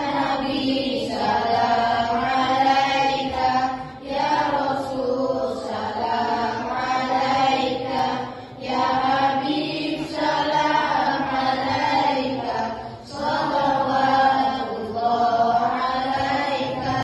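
A group of children singing a sholawat, a devotional song in praise of the Prophet Muhammad, together in unison. They sing in phrases of about four seconds, with a short break between phrases.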